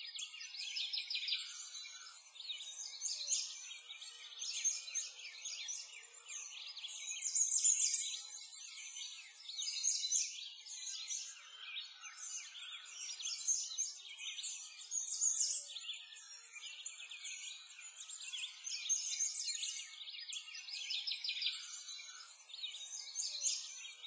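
Continuous chorus of small birds chirping and twittering, swelling and fading in loudness.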